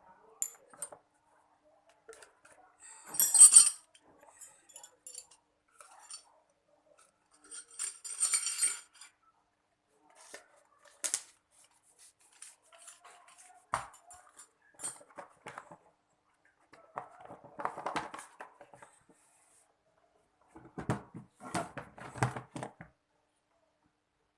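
Tool parts and packaging being handled during unpacking: irregular clicks, knocks and clattering of hard plastic and metal, with two short bursts of rustling or scraping in the first ten seconds.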